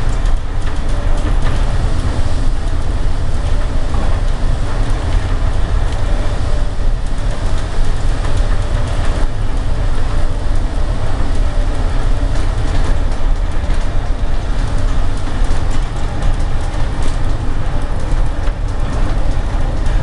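Storm wind buffeting the microphone as a loud, steady low rumble, over the rushing wash of heavy seas breaking around a bulk carrier's bow.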